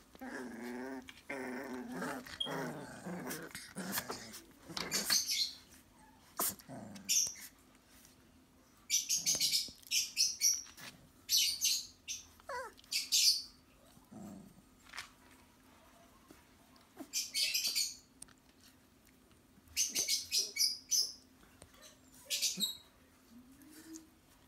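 Young Xoloitzcuintle puppies whining with wavering, rising-and-falling cries for the first few seconds. After that come repeated short bursts of high-pitched chirping, the loudest sounds, over a faint steady hum.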